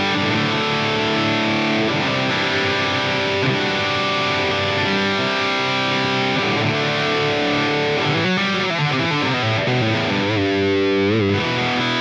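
Distorted electric guitar played through a Line 6 POD Go on the PV Panama amp model (after a Peavey 5150) with the Retro Reel tape-echo simulation, held chords and notes ringing out. About two thirds of the way through the pitch wavers up and down: the tape-machine wobble of the Retro Reel.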